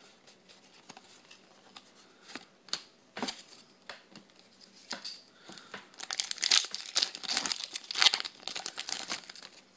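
A foil Yu-Gi-Oh booster pack crinkling and tearing open, loudest from about six seconds in for three seconds or so. Before it, scattered light clicks and rustles of handling.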